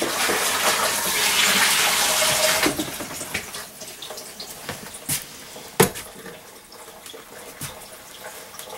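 Running water, like a tap, for about two and a half seconds before it stops, followed by a few sharp knocks, the loudest about six seconds in.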